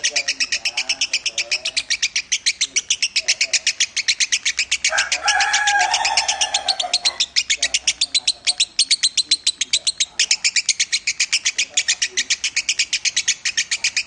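Caged lovebird singing a long, unbroken chattering trill of rapid high chirps, about six or seven a second. A louder, lower-pitched sound lasting about two seconds comes in about five seconds in.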